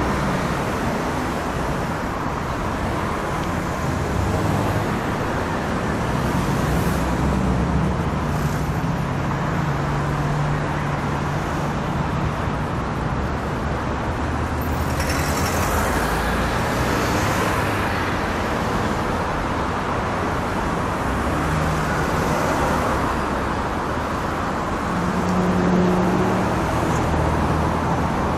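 Heavy city street traffic: a steady, dense mix of engine hum and tyre noise from many vehicles, with a closer vehicle passing about halfway through.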